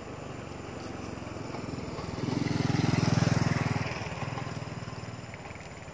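A motor vehicle passing by: its engine grows louder, is loudest about three seconds in, then fades away.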